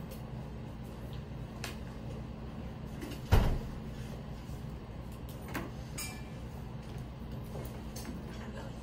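Classroom room tone with a steady low hum, broken by one loud knock a little over three seconds in and a few fainter clicks and taps.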